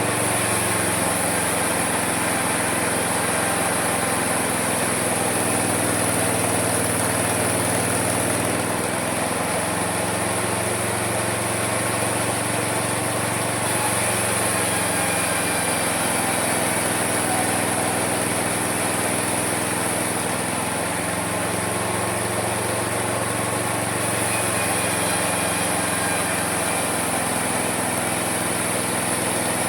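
Small engine of a homemade sawmill running steadily under the work of sawing wood. Its pitch sags and recovers every several seconds, and a high hiss swells and fades along with it.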